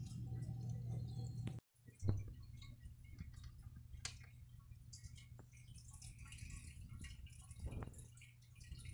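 Faint outdoor ambience with scattered short high chirps and ticks from songbirds feeding on a lawn. A low hum in the first second and a half breaks off at a cut, followed by a soft thump about two seconds in.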